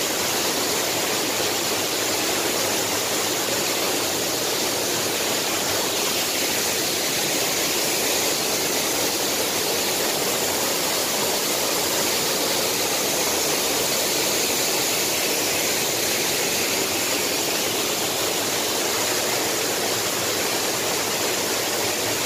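Waterfall with two streams plunging into a pool, giving a steady, even rush of falling water.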